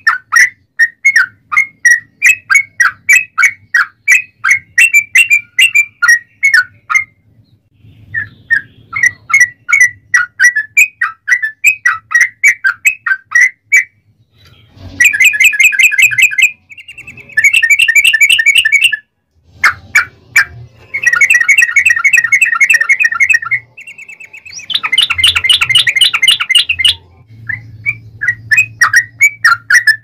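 Yellow-vented bulbul (trucuk) singing in long runs of rapid chattering notes. Spaced chirps at a few a second alternate with several dense, very fast trills (the 'ropel panjang' that keepers prize), broken by a few brief pauses.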